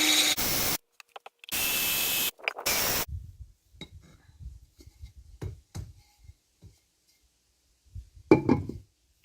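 Electric drill boring a ceramic flower pot, run in three short bursts over the first three seconds. Then the pot is handled, with scattered light knocks and rubs and one louder knock near the end.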